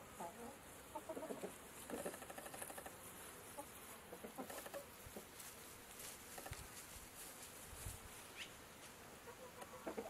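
Chickens clucking softly in short, scattered calls, with one brief high chirp near the end.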